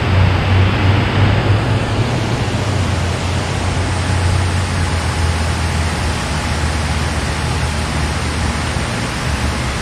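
Loud, steady rush of water pouring through the dam, with a deep low rumble underneath.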